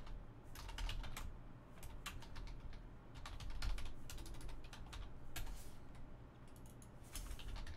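Typing on a computer keyboard: irregular runs of key clicks.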